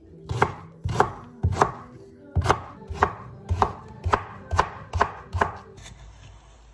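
Knife chopping through quince on a wooden cutting board: about ten sharp chops, roughly two a second, that stop near the end, leaving a faint steady hum.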